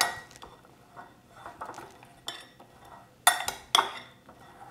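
Metal serving spoon scraping and clinking against a glass mixing bowl as oil-coated yellow squash pieces are tossed. Two sharper clinks come about half a second apart in the second half.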